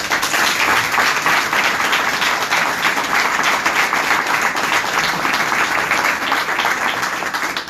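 Audience applauding: the clapping starts all at once and fades out near the end.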